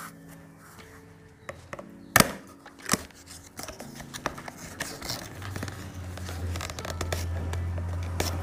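Paperboard box handled and opened by hand: the end flap is pulled open and the case inside scrapes along the cardboard. Sharp card clicks about two seconds in and again near three seconds, with rustling and scraping throughout.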